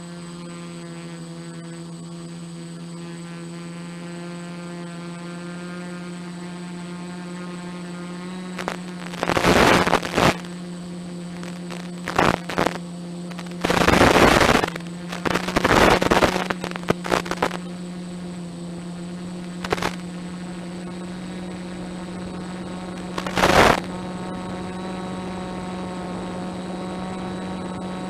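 Steady buzzing hum on the audio of an analog FPV video downlink. In the middle stretch it is broken several times by loud bursts of hissing static as the video signal breaks up.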